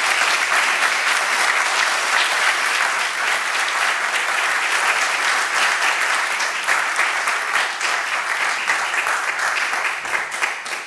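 Audience applauding: many hands clapping in a dense, steady patter that dies away near the end.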